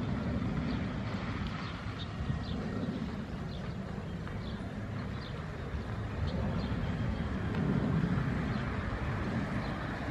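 Low, steady rumble of an Airbus A320's jet engines as the airliner climbs away after takeoff, swelling a little near the end. Short high chirps repeat about once a second over it.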